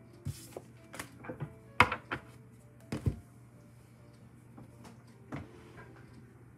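Cards and small objects handled and set down on a wooden tabletop: a few sharp taps and knocks in the first three seconds, the loudest about two seconds in, and one more a little after five seconds. Faint soft background music and a low hum lie underneath.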